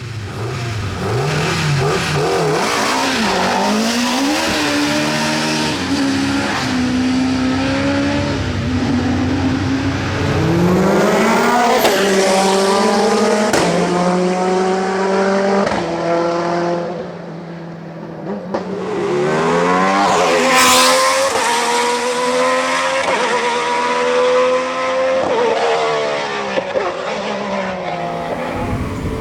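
Racing car engines at full throttle, the pitch climbing and dropping back again and again as the cars rev out and shift up through the gears.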